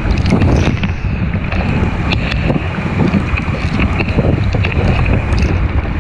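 Wind buffeting a GoPro's microphone aboard a 420 sailing dinghy under way in strong wind, over rushing water, with many short sharp hits throughout.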